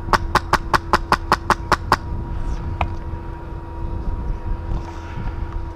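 Airsoft rifle firing a quick string of about ten shots at about five a second, then one more single shot near the three-second mark.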